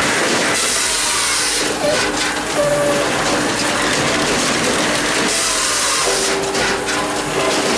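Firewood processor running, with a steady machine hum under it. Two cuts about four seconds apart, each lasting about a second: one about a second in and one near six seconds in.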